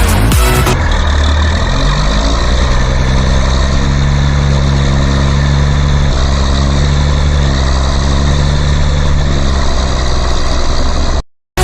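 Dance music breaks off and a vehicle engine runs steadily. It rises in pitch over the first second or two, then holds an even note, and cuts off abruptly near the end.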